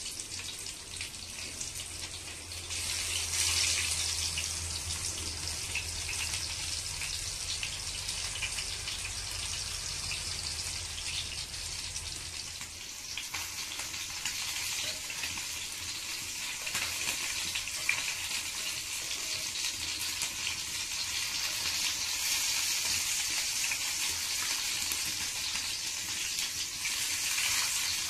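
Rava-coated pomfret shallow-frying in hot oil in a cast-iron pan: a steady sizzle with scattered crackles, growing louder about three seconds in and again in the last several seconds. A low rumble runs underneath for the first twelve seconds or so.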